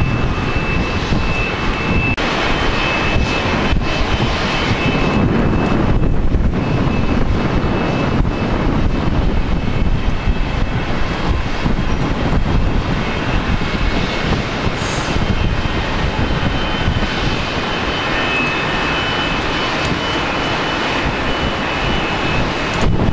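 Jet airliner engines running at taxi power: a steady, loud rush with a thin high whine. The whine fades about six seconds in and comes back a little higher later on.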